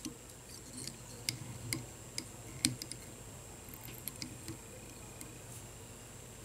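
Faint handling noise of a half hitch being tied in fly-tying thread on a hook held in a vise: a few light, scattered clicks and ticks, most in the first three seconds, over a steady faint hum.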